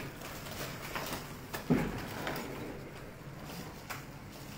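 Clear plastic takeaway containers and lids being handled and fitted together: scattered light clicks and knocks, with one louder knock a little under two seconds in.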